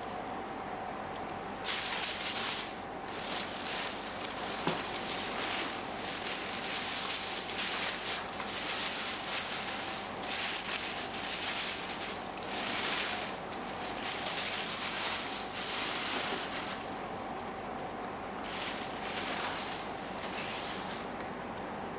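Packaging being handled during an unboxing: plastic and foam rustling and crackling in irregular bursts of a second or so, over a faint steady tone.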